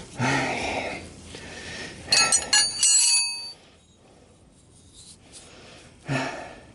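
Metal hand tools clinking and ringing against each other in a quick cluster about two seconds in, with a short grunt or mutter from the mechanic near the start and again near the end.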